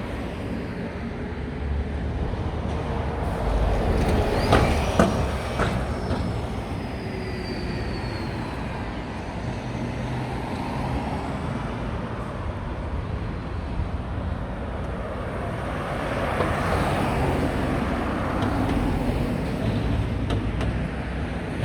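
Road traffic on a busy city street: a steady rumble of passing vehicles, with a couple of sharp knocks and a falling whine about four to five seconds in, and a louder vehicle passing around sixteen to nineteen seconds in.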